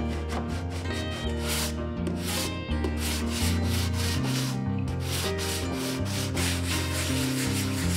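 Hand sanding of bare old wood: sandpaper on a hand block rubbed back and forth over the boards of an old wooden butter churn in quick, even strokes, the stage of stripping the old surface.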